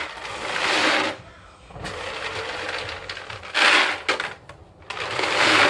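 Dry dog kibble scooped from the bag with a cut-down plastic jug and poured into a plastic bucket, rattling in several bursts, the loudest about a second in, near 3.7 s and toward the end.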